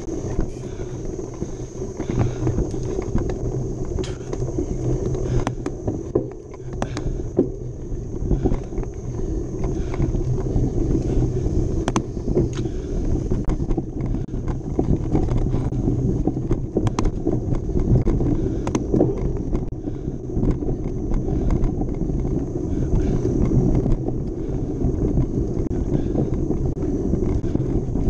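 Mountain bike being ridden on a dirt trail: a steady rumble of tyres and air with frequent sharp clicks and knocks from the bike over bumps.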